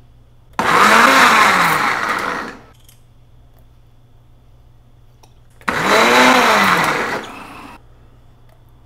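Ninja blender running in two short pulses of about two seconds each, its motor pitch rising as it spins up and falling as it winds down. It is blending oil, added a tablespoon at a time, into whipped egg whites to emulsify mayonnaise.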